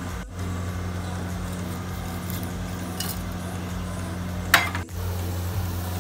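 A metal spatula stirs sliced onions frying in a large aluminium pot, scraping and clinking against the pot, over a steady low hum. There is one loud clank about four and a half seconds in.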